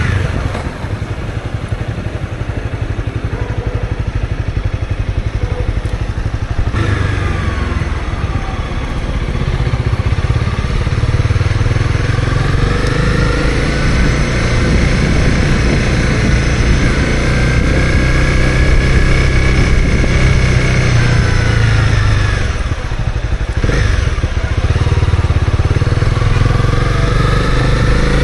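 Honda CB250R's single-cylinder engine pulling along, its pitch climbing and falling as it accelerates and eases off. It holds a steady note through the middle stretch, then drops briefly before rising again near the end, over a constant low rumble.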